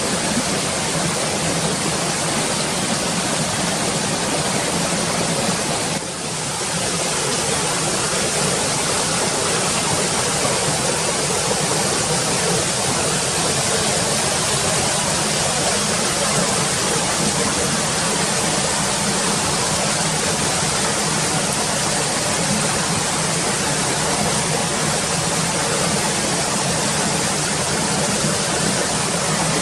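Steady rushing noise of running water, briefly dipping about six seconds in.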